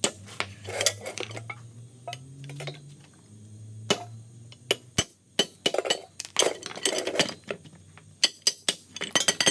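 Hammer blows on steel ringing out as pieces of a rusted, seized Ford Super Duty hub assembly are driven out. The sharp metallic strikes come in irregular bunches.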